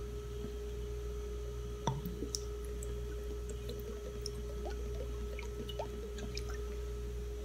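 Faint drips and small ticks as fish sauce is shaken from its bottle onto raw chicken wings, over a steady hum.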